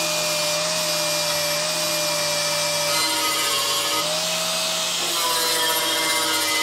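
Angle grinder with an 80-grit flap disc grinding down welds on a steel Honda Izy mower deck: a steady motor whine over the hiss of abrasive on metal. The motor's pitch drops slightly about five seconds in.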